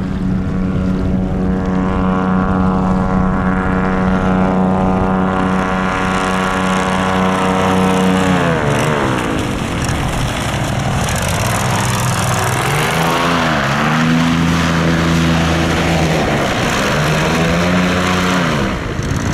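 SM-440 airboat's engine and air propeller running hard at a steady pitch, then about eight seconds in the pitch falls sharply and rises and falls twice more as the revs or the boat's distance change.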